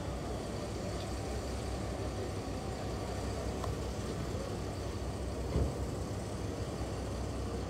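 Steady low engine rumble, with a single short thump about five and a half seconds in.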